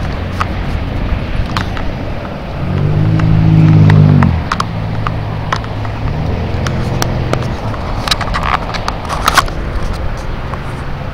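Wind and tyre noise of a bicycle riding along a paved trail, with scattered rattling clicks. A motor vehicle passes about three seconds in, its low engine hum swelling to the loudest point and then fading, and a fainter one follows a few seconds later.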